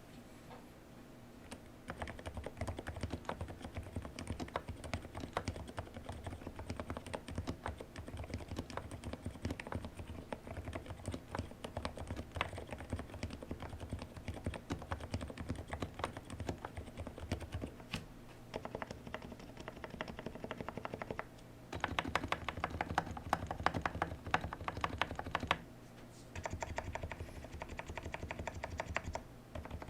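Steady typing on a custom tenkeyless mechanical keyboard with Cherry MX Silent Red switches, the switches and springs lubed and the case dampened with added foam and a tape mod. The typing breaks off briefly twice, the second time about three quarters of the way through, with a faster, busier run between the two pauses.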